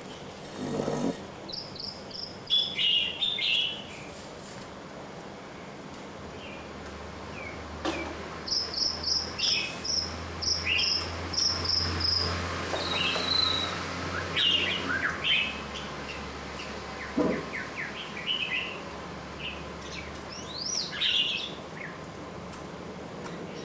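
Small birds chirping and twittering: short, high notes and quick runs of repeated chirps, some falling in pitch, coming in bursts throughout.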